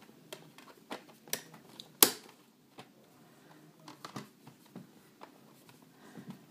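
Scattered light clicks and taps of a disc boxset's cases and packaging being handled, with one sharper click about two seconds in.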